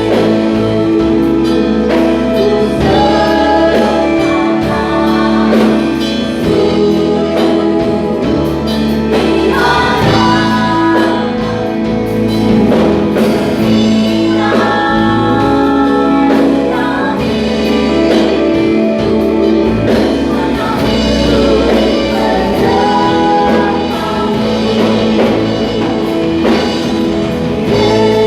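A worship band playing a gospel praise song, with singers over keyboard, bass and drums.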